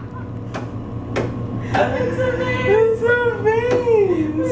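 A voice singing a held, wavering melody line from about two seconds in, preceded by three sharp clicks about half a second apart; a steady low hum underneath.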